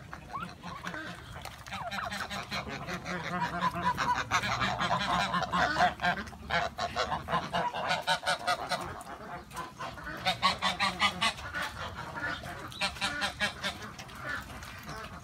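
Backyard poultry calling in fast runs of repeated honking notes, in several bouts.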